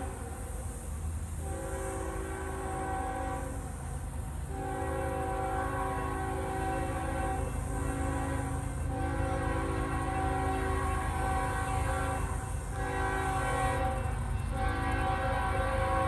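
Diesel freight locomotive's multi-chime air horn sounding a series of long blasts with brief breaks and a shorter blast near the end, growing slowly louder as the train approaches. A steady low rumble runs underneath.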